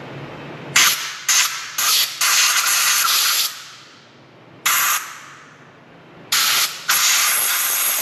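About seven short hissing blasts of pressurised gas or spray from a nozzle, each starting abruptly: a quick run of four in the first three seconds, the last of them held for over a second, then one brief blast and a final pair near the end, the second held about a second.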